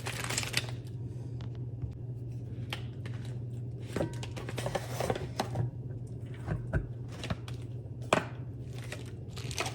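Kitchen handling during food preparation: a few scattered light knocks and clicks, over a steady low hum.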